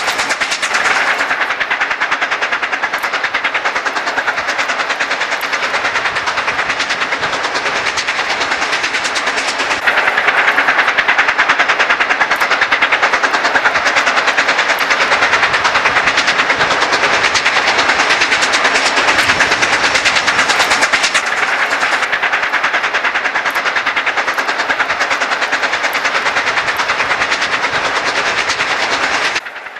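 Steam locomotives working upgrade, their exhaust beating in a fast, steady rhythm. It gets louder about ten seconds in and drops off suddenly near the end.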